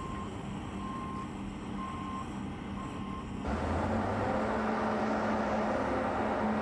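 Heavy construction machine's backup alarm beeping about once a second, four times, over a running engine; about three and a half seconds in, the beeping stops and a louder engine noise takes over.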